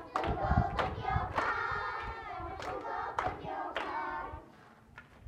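A group of young girls singing a Gujarati children's song together, clapping in time with it. The singing and clapping stop about four seconds in.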